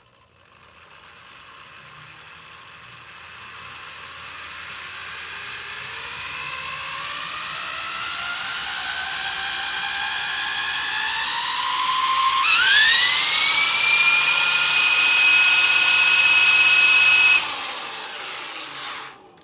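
Electric drill spinning a top-load washing machine's direct-drive motor rotor to test it as a generator. The whine rises slowly and steadily in pitch, jumps higher about twelve seconds in and holds at full speed, then drops off sharply and dies away as the rotor spins down near the end.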